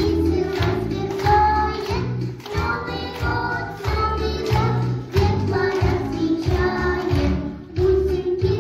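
A children's song: children singing over a backing track with a steady, regular beat.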